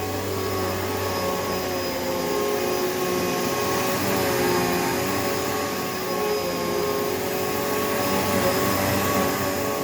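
2007 Hoover Elite Rewind upright vacuum cleaner running steadily, its motor freshly cleaned out; the motor's hum wavers in pitch briefly about four seconds in.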